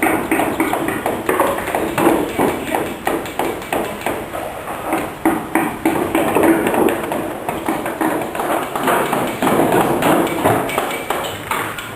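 Wooden carving mallets striking chisels: a dense, irregular run of quick knocks, several a second.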